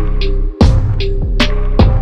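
Background music with a steady beat: sharp drum hits over a deep sustained bass and a few held notes, with a brief break about half a second in before a loud hit.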